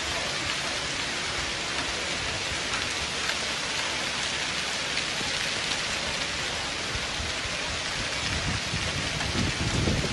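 Heavy rain and hail pelting a stone floor and carpet runners in a thunderstorm: a dense, steady hiss of impacts that swells louder with a low rumble near the end.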